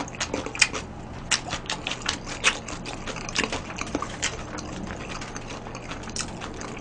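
Close-miked mouth noises of a person eating and drinking: irregular wet smacks and clicks of lips and tongue.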